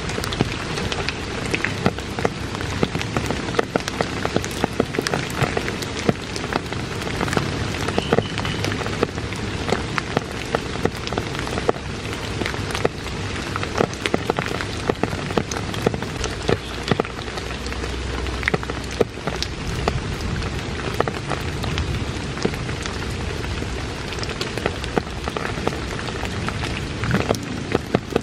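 Steady rain falling on wet forest floor, puddles and a plastic groundsheet, with many sharp individual drop hits over an even hiss.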